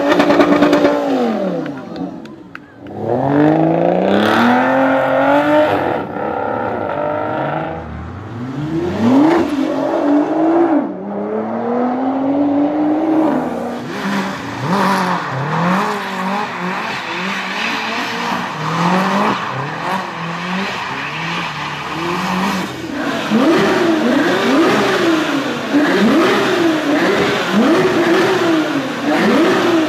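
Supercar engines revving hard. Near the start and through the middle the pitch climbs under acceleration and drops at each gear change. Near the end come quick repeated throttle blips, rising and falling about once a second.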